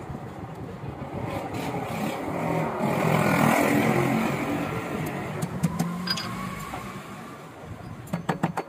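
A passing motor vehicle outside, rising to its loudest about midway and fading away. Near the end, a quick run of light hammer taps on small nails fixing the buckle strap of a leather chappal.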